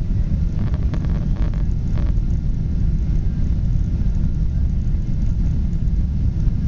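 Steady low rumble of a Delta Boeing 777 jet airliner, with a few faint rattles about a second in.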